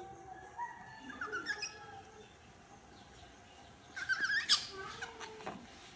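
Baby monkeys giving thin, high squeaks and chirping calls that waver in pitch, with a louder burst of squealing about four seconds in.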